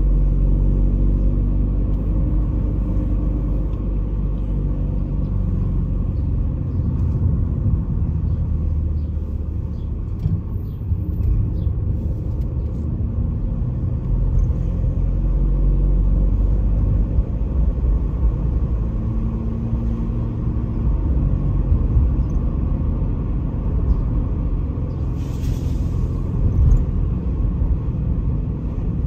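Road noise heard from inside a moving car: a steady low rumble of engine and tyres, with a faint engine note that shifts as the speed changes. A short hiss comes near the end.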